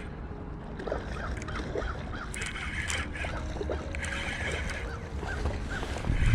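Steady rumble of river water and wind on the action camera, with the light repeated clicks and squeaks of a fishing reel being wound in on a hooked fish.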